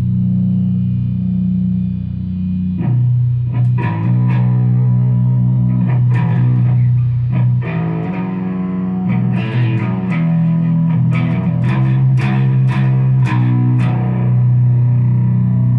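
Music: sustained low notes with a run of sharp plucked attacks through the middle, under a steady loud level.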